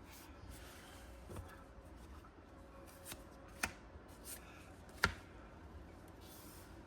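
Faint handling of Pokémon trading cards from a freshly opened booster pack: a few soft clicks and light rustles as the cards are flicked through, the sharpest click about five seconds in.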